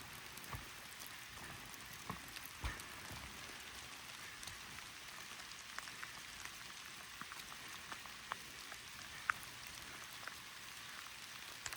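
Steady rain hissing, with single drops tapping close by at irregular moments.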